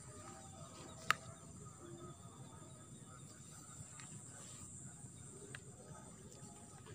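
Steady, high-pitched insect chirring, with one sharp click about a second in and a few faint ticks.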